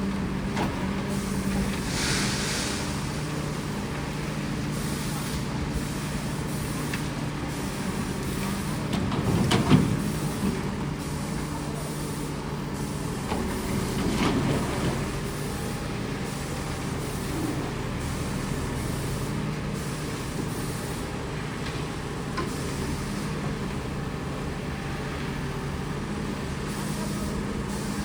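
Diesel engine of a backhoe loader running steadily on a work site, with a short louder burst about ten seconds in and a smaller swell a few seconds later.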